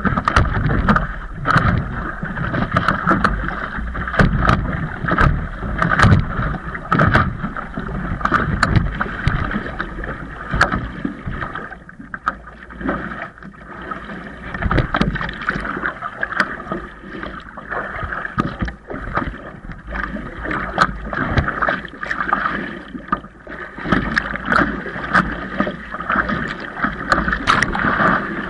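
Windsurf board under way: a constant rushing, rattling noise with many irregular clicks and knocks, mixed with wind buffeting the microphone. The noise eases briefly twice, around the middle and again later.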